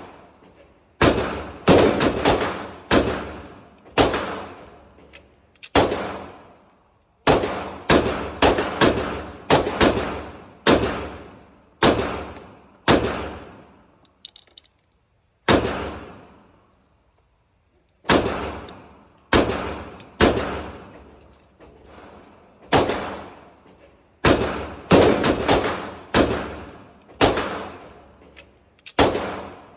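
Dan Wesson Specialist .45 ACP 1911 pistol firing dozens of shots, some singly and some in quick strings of several shots a second. Each shot rings and dies away off the hard walls of an indoor range. There are brief pauses at about 14 s and 16–18 s.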